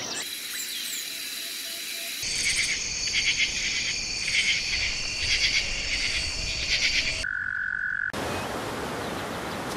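Spliced nature sounds: a soft hiss with a thin high tone, then for about five seconds a pulsing chorus of trilling animal calls, a short steady tone, and from about eight seconds in the even rush of a stream over rocks.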